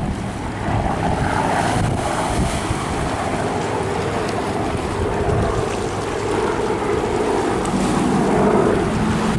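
Piston-engine warbird flying past in a steady drone, its pitch dipping slightly near the end, with wind buffeting the microphone.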